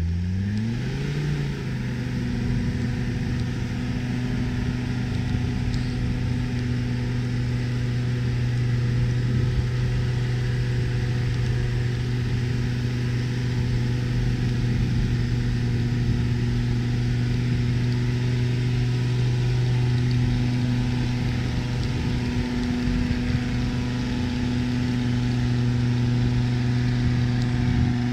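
Land Rover Discovery TD5's five-cylinder turbodiesel revs up over the first second or so, then is held at steady high revs as the truck pushes through deep snow with its wheels spinning.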